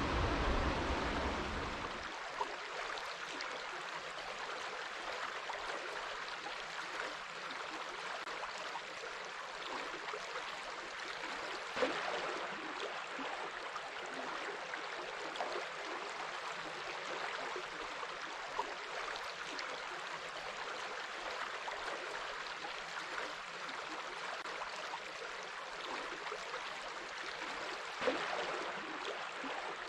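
Steady rushing water noise, like a flowing stream, with a deeper rumble that drops away about two seconds in. Two sharp clicks stand out, one near the middle and one near the end.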